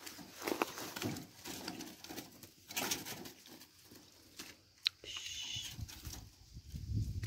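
Footsteps and rustling on dry grass, with a sharp click a little before the five-second mark and a brief high-pitched sound just after it.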